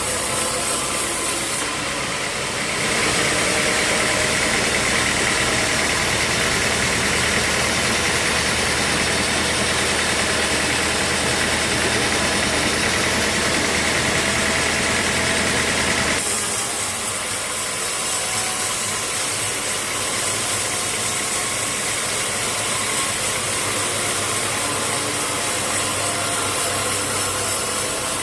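Sawmill machinery running steadily: the saw cutting through a teak log grows louder and higher-pitched from about three seconds in, then drops back to a plain running sound a little past halfway.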